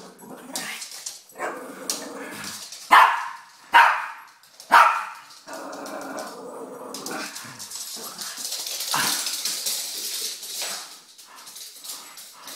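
Shih Tzu giving play barks: three sharp, loud barks about three to five seconds in, the dog calling its owner to play.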